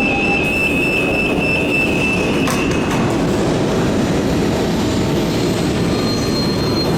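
A passenger train running through a station: a loud, steady rumble of wheels on the rails. A high, steady wheel squeal stops about two and a half seconds in, with a few clicks as it ends, and a higher squeal begins near the end.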